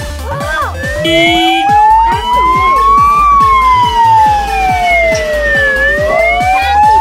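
Siren wailing, rising slowly in pitch, falling, then rising again, over background music with a steady beat.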